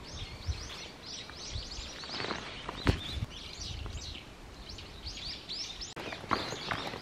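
Birds chirping in quick repeated high notes over footsteps on a walking trail, with one sharp knock about three seconds in.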